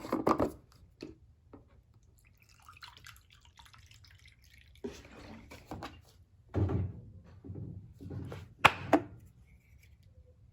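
Carpet-cleaning solution pouring and dripping into the plastic solution tank of a Hoover Power Scrub Deluxe carpet cleaner, in several short irregular spurts, with plastic clicks and knocks as it is handled. A sharp click near the end is the loudest sound.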